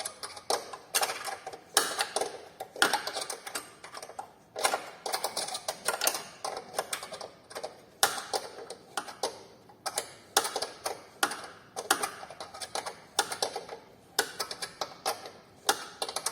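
Ratchet wrench clicking in quick uneven runs, working a bolt with a damaged thread in the Chery QQ's suspension control-arm mount.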